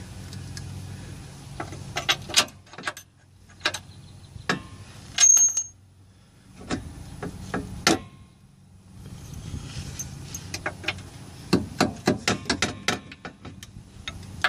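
Irregular metallic clicks, knocks and clinks as the steel lower control arm of a 2006 Chevrolet Aveo and its bolt are worked into line with the subframe mounting holes. The sounds come in scattered clusters, with a short ringing clink about five seconds in and a quicker run of clicks near the end. A low hum sits underneath at times.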